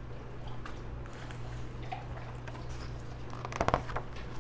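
Steady low electrical hum, with a brief cluster of rustles and taps about three and a half seconds in as a hardcover picture book is handled.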